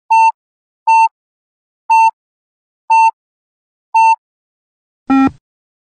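Electronic beeps from a Yo-Yo endurance test app: five short, identical high beeps one second apart, then a lower, buzzier tone about five seconds in. The beeps count down the rest interval, and the final tone signals the start of the next shuttle run.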